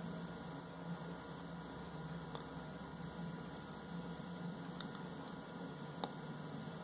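Steady low electrical hum, with three faint clicks about a second or two apart, the last the sharpest, as buttons on the camera's remote control are pressed to step through its settings.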